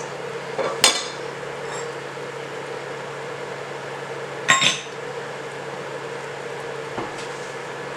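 Cookware clinking twice against the curry pot, sharp and ringing briefly, about a second in and again midway, over a steady low hum.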